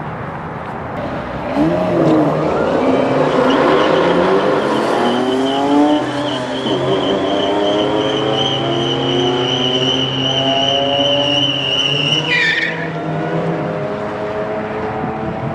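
Dodge Hellcat's supercharged V8 revving through a burnout, the rear tires giving a long, steady high squeal that cuts off about twelve seconds in. The engine keeps running at lower revs afterwards.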